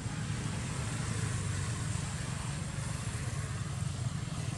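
A steady low engine drone, like a motor vehicle idling or running nearby, with a faint outdoor hiss over it.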